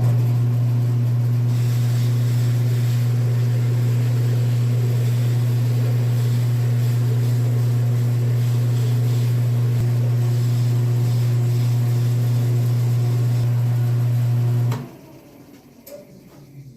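Wood lathe's electric motor switched on and running at a steady speed with a strong low mains hum, while the spinning workpiece is sanded; it is switched off about 15 seconds in.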